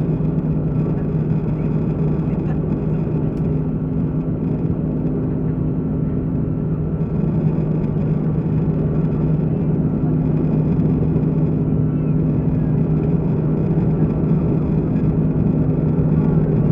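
Steady drone of an Airbus A330-300's engines and rushing air heard inside the passenger cabin, with a low, even hum, growing slightly louder about seven seconds in.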